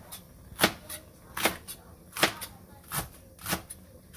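Kitchen knife chopping through a green onion and knocking on the cutting board, one cut about every three-quarters of a second.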